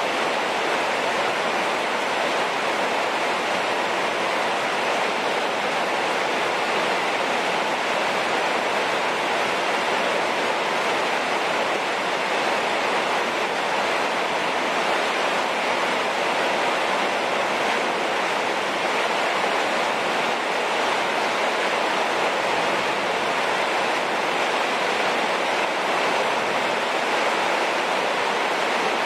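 Heavy rain falling steadily, an even rushing noise with no breaks.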